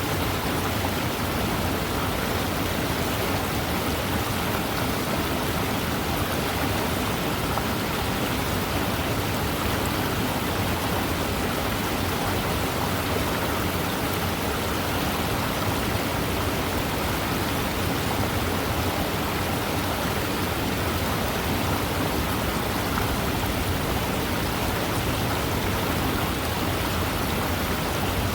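Waterfall: falling water making a steady, even hiss with no breaks or changes.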